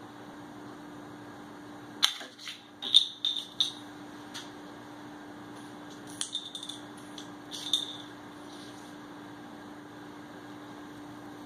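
A bottle cap batted by a cat clatters and skitters across a tile floor in two bursts of sharp clicks with a short ringing tone, about two seconds in and again around six to eight seconds in. A steady electrical hum runs underneath.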